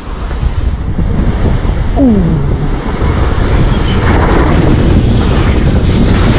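Wind rushing over an action camera's microphone together with the hiss of a snow tube sliding over packed snow as it speeds down a tubing run, building up over the first couple of seconds and then staying loud and steady.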